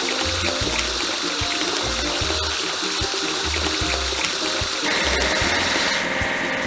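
Cartoon sound effect of water spraying and running, over background music with a steady beat. About five seconds in, the sound changes to a steadier hum.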